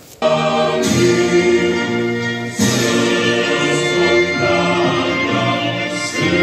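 A choir singing in long held chords, starting abruptly just after the start, with the chord changing every second or so.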